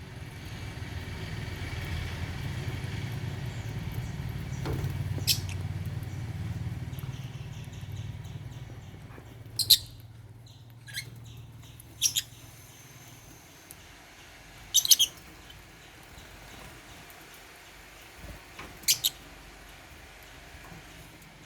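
African lovebirds giving short, sharp high-pitched chirps, about five scattered calls with pauses between them, over a low background rumble that fades after the first several seconds.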